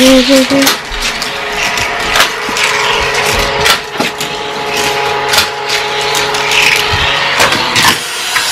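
Battery-powered Hot Wheels track booster whirring steadily, while plastic toy cars clack and rattle along the track in irregular sharp clicks.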